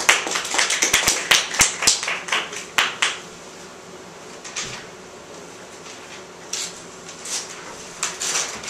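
Brief applause from a few people, dense irregular claps for about three seconds that then die away, followed by a few faint knocks.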